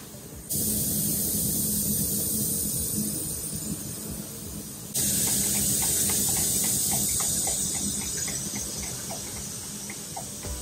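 Loud steady hiss that starts abruptly about half a second in and jumps louder about five seconds in, with faint light taps as paint is stirred in a cup with a wooden stick.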